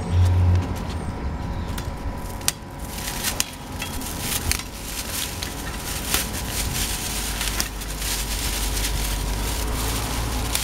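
Dry hydrangea stems and dead flower heads crackling and snapping as they are cut with a hand sickle and pulled off by hand: a rapid, irregular run of crackles and snaps from about two seconds in. A low engine hum cuts out in the first second.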